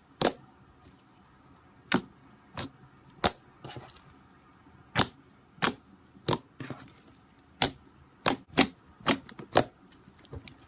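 Slime being squeezed and worked by hand, with trapped air pockets popping in a dozen or so sharp, clicky pops at irregular intervals.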